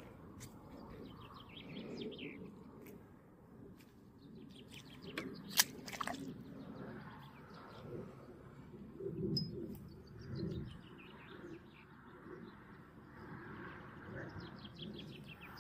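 Songbirds singing in runs of rapid, short high notes, repeated several times. A single sharp click about five and a half seconds in, with low rustling handling noise around it.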